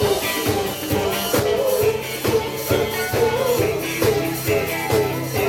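Upbeat band music with a singing voice over drums and a steady bass line.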